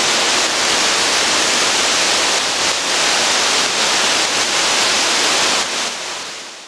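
Rushing water: a loud, steady, even hiss that fades out near the end.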